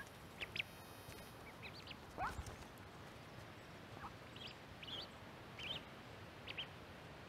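Mallard ducklings peeping while feeding, a scatter of short, high, rising peeps, with one louder, lower call about two seconds in.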